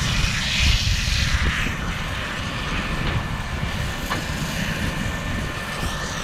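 Claas Arion 650 tractor running a McHale Fusion round baler-wrapper: a steady machinery rumble.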